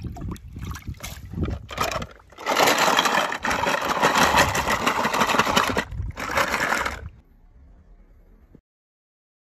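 Wet plastic and die-cast toy cars being handled in a plastic tub: scattered knocks and splashes of dripping water, then a few seconds of loud rushing, rattling noise as the tub is carried. The sound cuts off abruptly near the end.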